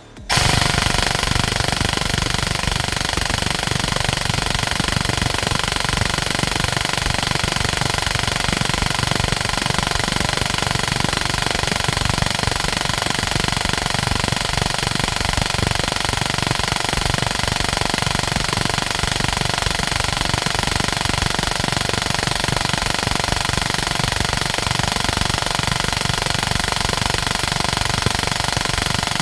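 Airsoft P90 AEG gearbox cycling on full auto without a break, driven by a 35k brushless motor on an 11.1 V LiPo: a loud, continuous mechanical rattle that starts about a third of a second in. It is a sustained torture run that leaves the gearbox hot.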